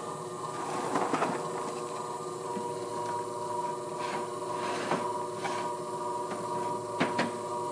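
Brake-shoe riveting machine running idle with a steady electric hum, with a higher tone joining about two seconds in. A few light knocks come as the riveted brake shoe is handled.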